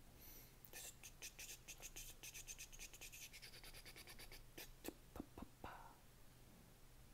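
Faint handling noise on the microphone: quick scratchy ticks for a few seconds, then a few sharper clicks around five seconds in.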